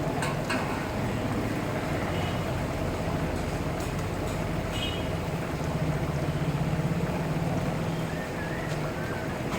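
A steady low hum over a steady hiss, swelling slightly midway, with a few faint clicks.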